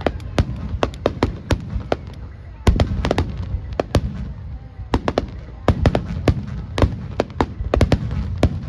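Aerial fireworks bursting in quick, irregular succession: many sharp cracks over a continuous low rumble of booms. A heavier boom comes about three seconds in.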